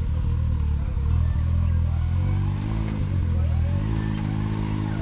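Side-by-side UTV engine running under the driver's throttle, its revs stepping up and down a few times as it works on the climb.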